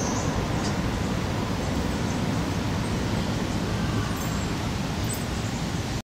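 Steady outdoor street ambience: a low, even rumble of traffic, with a few faint high chirps now and then.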